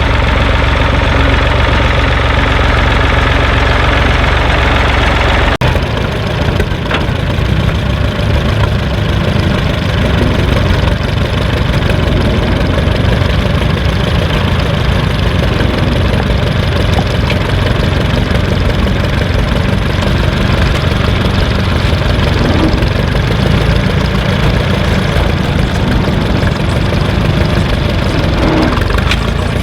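An engine running at a steady idle, loud and even. About five and a half seconds in the sound changes abruptly to a fast, even low chugging.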